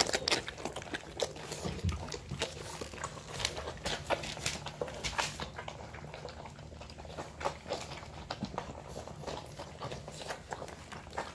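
Five-week-old American Molossus puppies eating dry kibble: an irregular run of crunches and sharp clicks from chewing, denser in the first few seconds.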